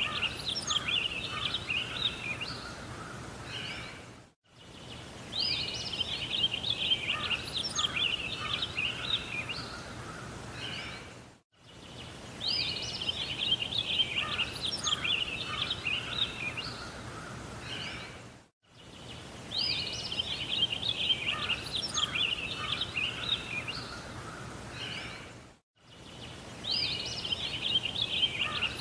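Birds singing, with rapid chirps and twittering over a soft hiss. The same short stretch of birdsong repeats as a loop about every seven seconds, dropping out briefly each time it restarts.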